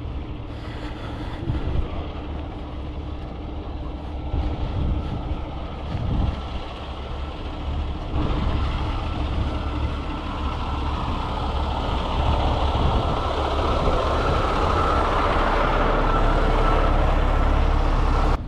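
A heavy vehicle's engine running with a steady low rumble, growing louder through the second half, with a few brief knocks early on.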